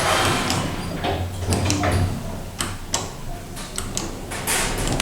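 Schindler 5500 service lift: a run of irregular sharp clicks and knocks over a steady low hum, from the lift's doors and mechanism.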